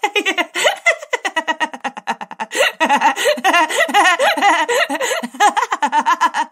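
High-pitched giggling laughter, many quick laughs in a row with the pitch wobbling up and down.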